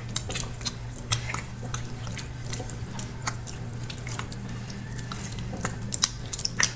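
Bare hands rubbing and pressing a wet marinade into a raw pork leg, giving soft squelching and many small, scattered wet clicks, over a low steady hum.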